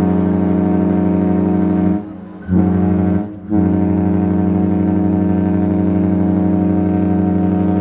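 Ship's horn sounding one deep, loud, steady blast, broken off briefly twice, about two seconds and three and a half seconds in.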